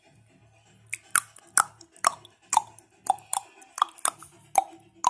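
Marching-band drum strikes heard through a TV's speaker: sharp hits about twice a second, starting about a second in, each with a short ring that drops in pitch.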